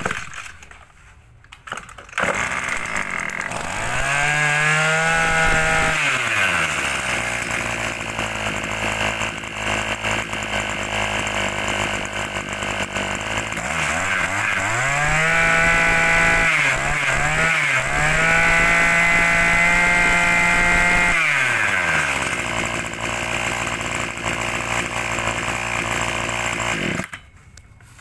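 Small two-stroke brush cutter engine starting, revved up twice to a high steady pitch and dropped back to idle each time, then switched off abruptly near the end.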